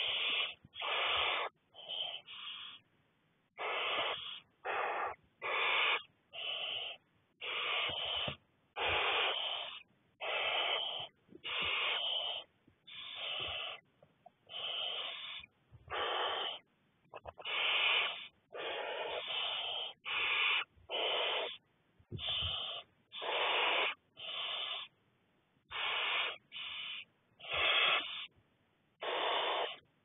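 Barn owl chicks giving their hissing food-begging calls, one hiss after another, about one a second with short irregular gaps.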